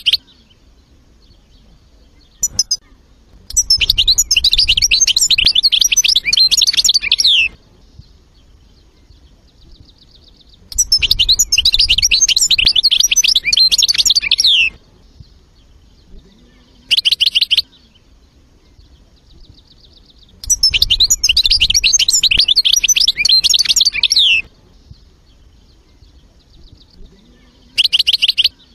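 European goldfinch singing: three long phrases of fast, varied twittering and trills, each about four seconds, with short bursts of chirps in the pauses between them.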